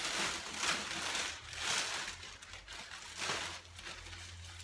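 Rustling from clothes being handled, in several short bursts, with a faint steady low hum beneath.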